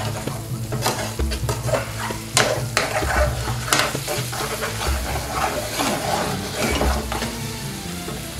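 Metal spoon stirring a thick curry sauce in a steel frying pan over a high gas flame, scraping and knocking against the pan many times while the sauce sizzles.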